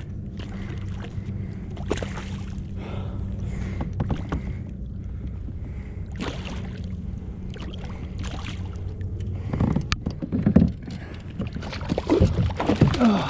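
A hooked speckled trout splashing at the surface beside a kayak as it is played in, with water sloshing against the hull. The splashing grows louder and busier over the last few seconds as the fish is brought to hand. A steady low hum runs underneath and stops about nine and a half seconds in.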